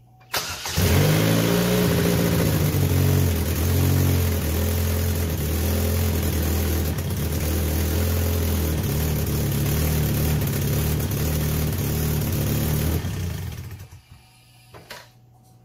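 2006 Pontiac Solstice's 2.4 L LE5 Ecotec four-cylinder engine catches about half a second in and runs loud. Its note wavers for the first few seconds, then settles into a steady idle until it is shut off about 13 seconds in. The owners put the loudness down to a major exhaust leak where bolts have not yet been tightened.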